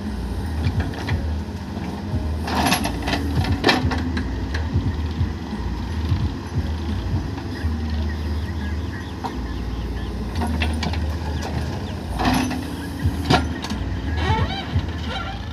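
Cat 424 backhoe loader's diesel engine running steadily as it digs and loads soil. A few seconds in and again near the end come clusters of sharp clanks and knocks from the bucket and soil.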